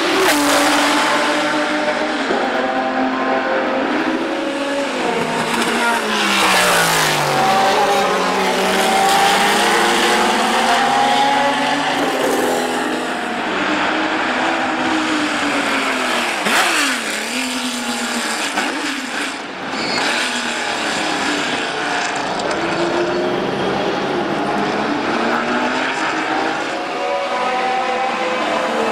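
Ferrari 512 BB LM's flat-12 racing engine under hard driving, heard without a break: its note climbs with acceleration and drops sharply several times as it changes gear and sweeps past.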